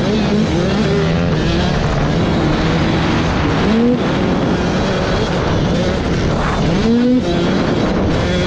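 Dirt bike engine heard from on board while riding, revving up and shifting: the engine pitch climbs and then drops sharply at each upshift, about halfway through and again near the end.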